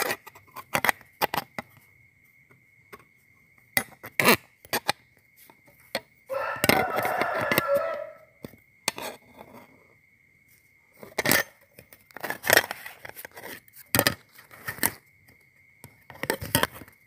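Perforated metal construction-kit strips and plates clicking and knocking as they are handled and bolted together with a small screwdriver. About six seconds in there is a dense stretch of rattling and scraping lasting nearly two seconds.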